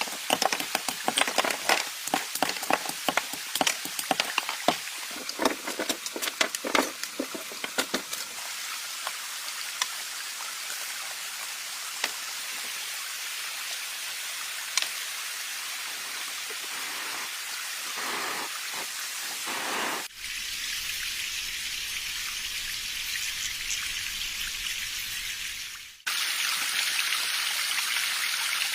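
Steady rain hiss, with a dense patter of sharp taps over the first eight seconds; the sound shifts abruptly twice in the second half.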